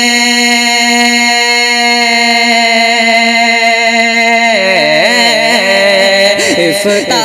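Naat singing without words: a male voice holds one long steady note, then from about halfway breaks into a wavering, ornamented melodic run, over a steady drone.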